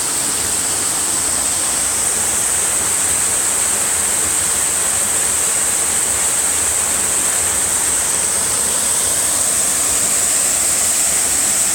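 Waterfall rushing steadily as it pours into a pool at its base, a continuous even roar of water at a fairly normal flow.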